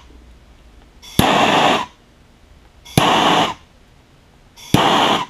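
Handheld gas torch on a yellow fuel cylinder fired in three short bursts about two seconds apart, each a sharp click followed by about half a second of hissing flame. It is being used very lightly to singe the stray nylon from the freshly cut end of a braided hose.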